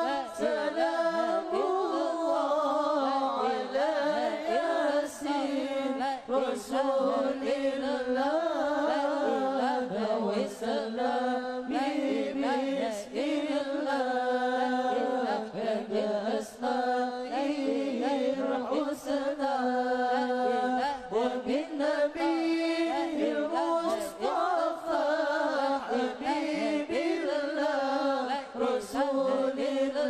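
Background music: an Arabic Islamic devotional song sung in a chanting style, its melody wavering without pause.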